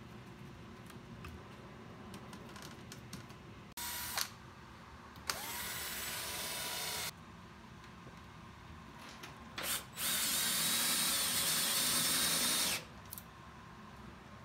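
Power drill running in three bursts: a brief one about four seconds in, a run of nearly two seconds that winds up in pitch as it starts, and a longer, louder run of nearly three seconds from about ten seconds in.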